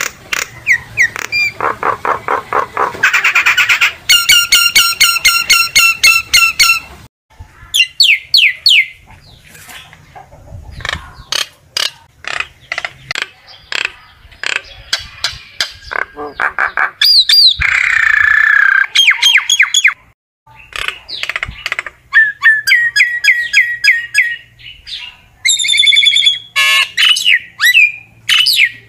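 Common myna singing and calling: a varied, repeated run of rapid clicking rattles, pulsed harsh notes and short gliding whistles, with brief pauses between phrases.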